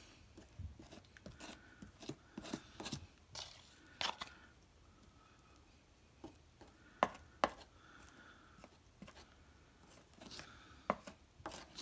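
A small metal spoon scraping and tapping as it spreads wet Sculptamold paste over plaster cloth: faint, irregular scrapes and clicks, with two sharper clicks about seven seconds in.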